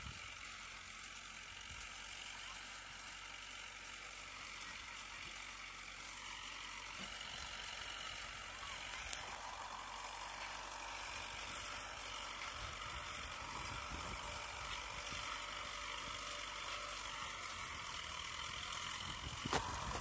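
Tractor-drawn sugar beet harvester running in the field at a distance, a steady mechanical noise that grows slightly louder as it comes nearer. Two brief sharp ticks, about nine seconds in and near the end.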